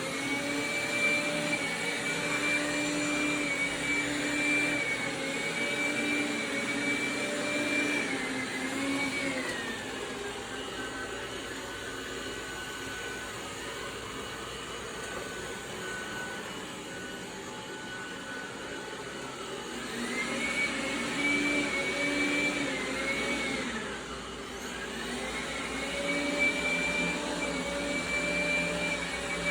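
Dreame Bot L10 Pro robot vacuum's suction motor whining, its pitch and level dropping about ten seconds in, ramping back up around twenty seconds, then dipping and rising again a few seconds later. The robot is switching its carpet boost on and off on a hard floor, as if it were on carpet, a fault the owner ties to the glossy refrigerator.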